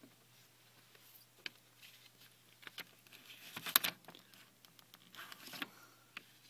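Ragdoll cat shifting around in clothes on a wire closet shelf: scattered rustling of fabric and light clicks. The rustling is loudest about three and a half seconds in and comes again a little after five seconds.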